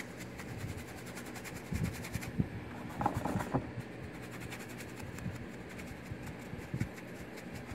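A flat bristle paintbrush scrubbing dry-brush strokes of latex paint over a textured concrete statue, a soft scratchy rustle with a few brief louder strokes, over a steady low hum.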